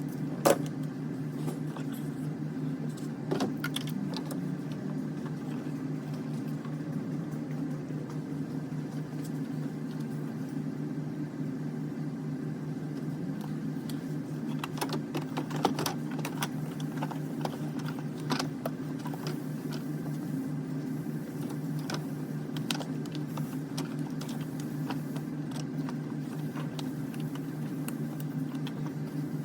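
A steady, low mechanical hum with a few short, sharp clicks and clinks scattered through it, a couple near the start and a few in the middle.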